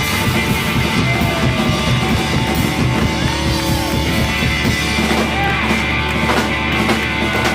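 Live rock band playing loud: distorted electric guitars, bass and drums in a dense instrumental passage, with a few sliding guitar notes in the middle.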